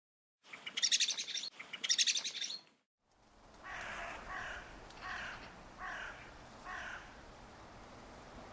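Birds calling in two separate recordings. First comes a bird giving two bursts of rapid, high chirping. After a brief silence, another recording has a bird repeating a short falling call about five times over a steady background hiss.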